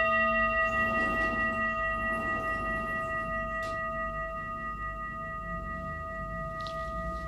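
Singing bowl ringing on after a strike: one clear, steady tone with higher overtones, slowly fading.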